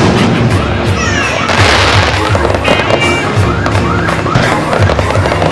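Fireworks going off in quick succession: many sharp pops and crackles with rising whistles, over music with a steady low beat.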